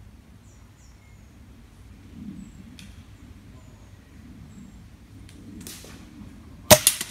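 A single air rifle shot near the end: a sharp crack followed by a quick cluster of smaller clicks, over faint high bird chirps.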